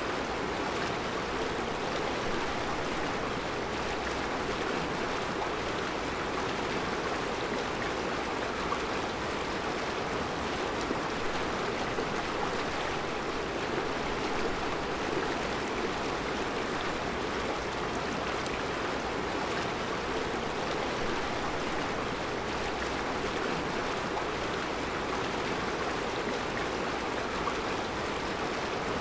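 Mountain river flowing over a rocky bed of round stones, a steady, even rush of water.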